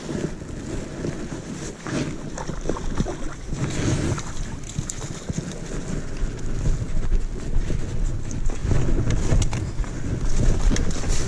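Wind buffeting the microphone with a low rumble, over rustling of bankside plants and clothing and scattered clicks and knocks from a fishing rod and landing net being handled.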